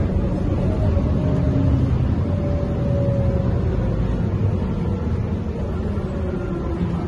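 Mercedes-Benz O405N2 city bus under way, heard inside the cabin: steady engine and drivetrain running with road noise, and a faint rising whine over the first few seconds. The overall level eases a little about halfway through.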